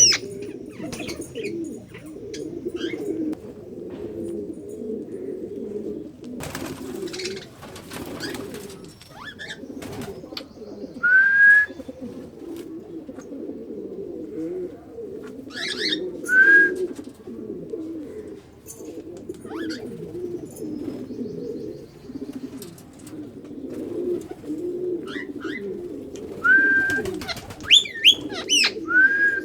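Pigeons cooing continuously in overlapping low calls. A few short, sharp rising calls from another bird cut in now and then, louder than the cooing, with a cluster of them near the end.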